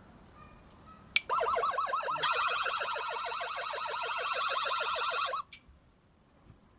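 Wireless caregiver pager alarm sounding after a click: a loud warbling siren tone, about seven quick sweeps a second, that runs for about four seconds and cuts off suddenly.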